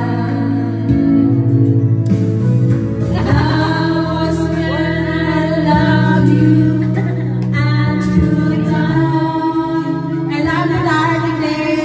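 A woman singing into a microphone over a recorded backing track, holding long notes.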